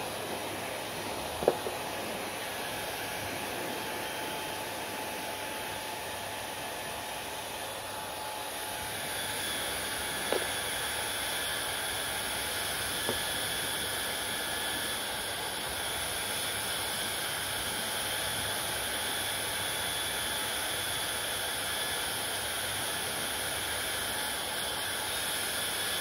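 Handheld hair dryer blowing steadily, a rushing hiss of air with a faint motor whine that brightens a little about nine seconds in. A few brief clicks sound over it, the sharpest near the start.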